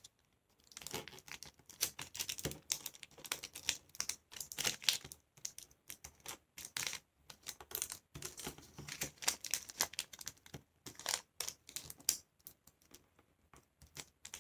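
Thin, waxy translucent paper rustling and crinkling as it is folded and creased by hand on a wooden table, with quick irregular taps and scrapes from fingertips and nails pressing along the folds.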